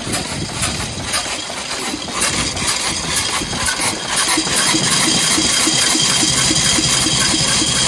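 A 1901 Curved Dash Oldsmobile's single-cylinder engine idles with a slow, even beat of about three pulses a second. It has just been revived after sitting unrun for at least ten years. It grows louder over the first few seconds, then holds steady.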